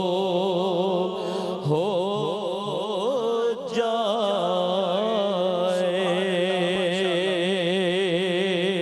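A man's voice singing an Urdu naat (devotional song) in long, wordless held notes that waver with vibrato, over a steady drone-like hum.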